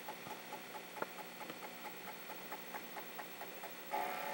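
Commodore 1541 floppy drive formatting a disk with a cartridge fast-format: the head stepper clicks faintly and evenly, several times a second, as the head moves track by track. A short buzz comes from the drive near the end.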